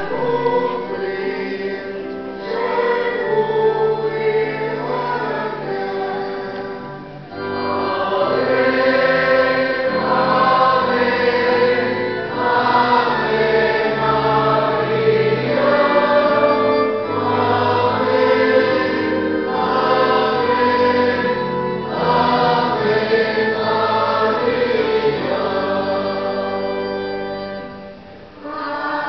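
A choir singing a hymn in long phrases over held low notes, with short breaks between phrases about seven seconds in and near the end.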